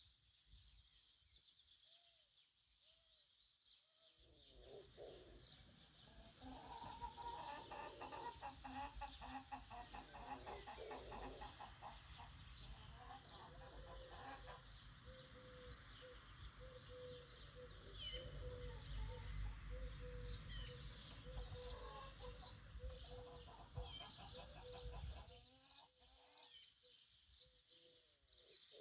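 Chickens clucking, with small birds chirping higher up and a steady low rumble underneath.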